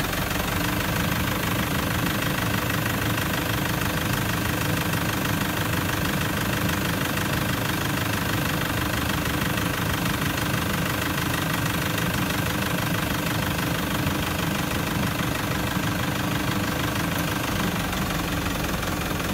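Toyota Prado 150 engine idling steadily, heard from beneath the vehicle. It is running with the A750F five-speed automatic being cycled through the gears to warm the transmission oil toward about 40 °C for setting the oil level.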